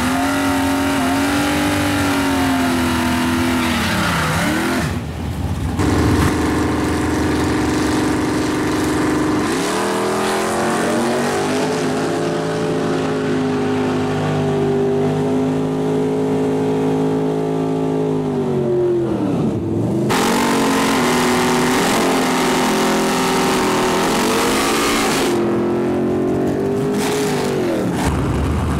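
V8 drag race car engines running at high rpm. The engine pitch holds steady for long stretches and drops sharply and recovers three times.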